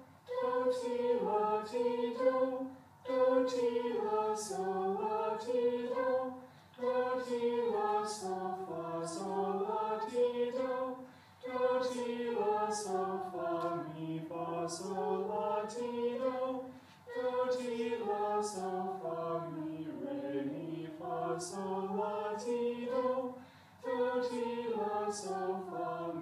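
Junior high choir singing unaccompanied in unison, sustained notes stepping up and down in phrases of a few seconds, with a short breath between phrases.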